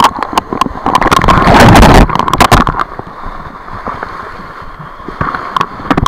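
Whitewater rapids rushing and splashing over a rafting boat as it capsizes, with water striking the camera in sharp crackles. The rush is loudest about one to two seconds in, then settles to a lower steady wash with scattered crackles.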